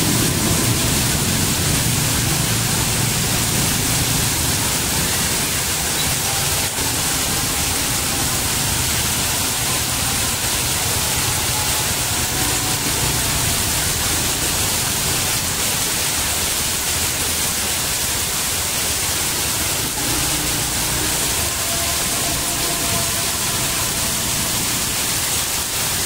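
Heavy rain, a steady even hiss of the downpour on the street and roofs, with water pouring off a roof edge onto the pavement.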